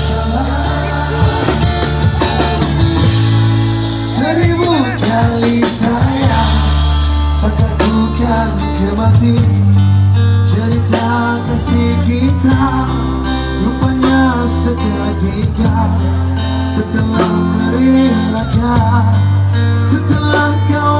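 Live band music played on the street: guitars over bass and drums, with a voice singing the melody.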